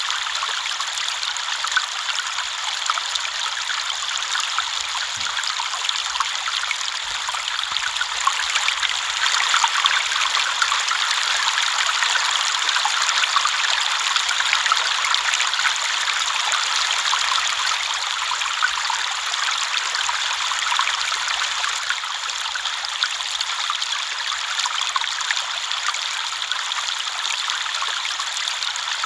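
A river flowing steadily, a continuous rushing and trickling of water with small splashing crackles, a little louder in the middle.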